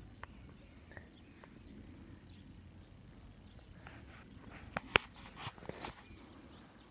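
Faint outdoor background, then handling noise on the phone's microphone about five seconds in: a short cluster of sharp clicks and knocks, the loudest a single sharp click.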